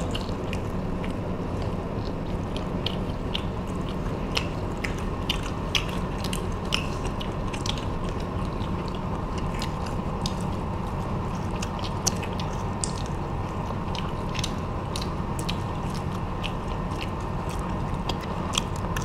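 Close-miked crunching and chewing of crispy breaded fried shrimp: many sharp, irregular crunches over a steady low background hum.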